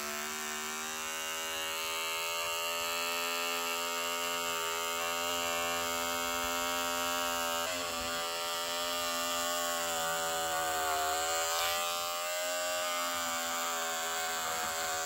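Small handheld electric razor buzzing steadily as it shaves pilled fibres off fabric headliner, its pitch sagging slightly a couple of times.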